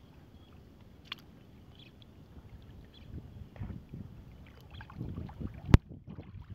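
Shallow muddy water flowing and rippling through a small channel, getting louder over the last few seconds, with one sharp click near the end.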